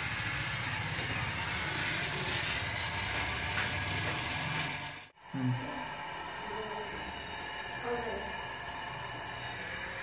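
Gas brazing torch flame hissing steadily while it heats copper tubing on a refrigerator's condenser for a brazed joint. It drops out abruptly about halfway through, then goes on hissing.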